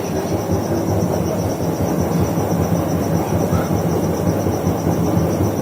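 LG front-load washing machine on its spin cycle: the drum spinning with a steady low rumble, and a faint steady high whine above it.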